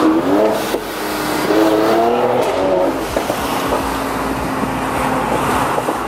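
Renntech-tuned 2018 Mercedes-AMG C43's twin-turbo 3.0-litre V6, heard from inside the cabin while driving: the engine note rises and falls in pitch through the first three seconds, then runs steadily.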